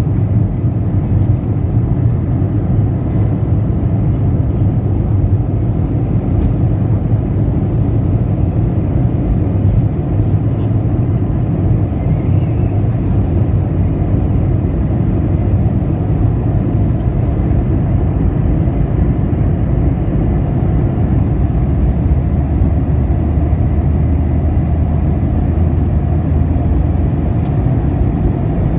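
Jet airliner taking off: a steady, loud low rumble of engines and rushing air that holds unchanged without rising or falling.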